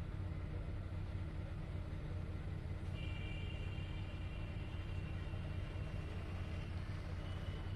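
Car engine idling, a steady low hum heard from inside the cabin. Faint high-pitched tones come in about three seconds in.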